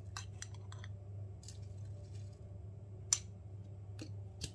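Light clicks and taps of a glass spice jar as salt is tipped into a plastic chopper bowl, with one sharper glass clink about three seconds in. A steady low hum runs underneath.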